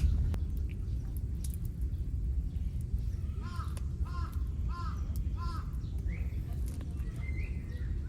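A crow cawing four times in a row, about two-thirds of a second apart, over a steady low rumble.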